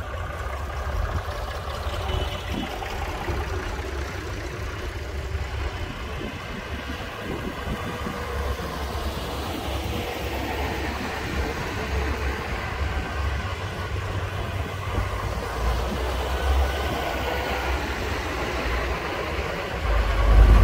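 A procession of tractors driving past one after another, their diesel engines running in a steady low rumble that swells louder near the end as one passes close by.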